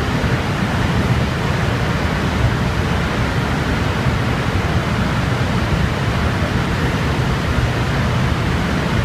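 Steady, even whirring rush from a JR Freight Class EF510 electric locomotive standing at the platform with its equipment running.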